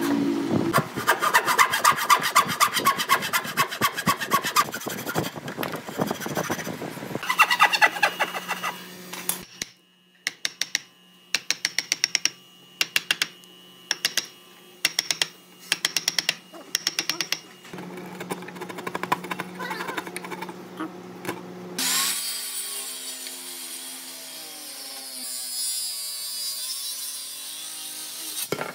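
Hand saw rasping back and forth through a pine board, then a series of sharp knocks as a chisel chops out a wood joint, then a circular saw running as it cuts across a thick pine board.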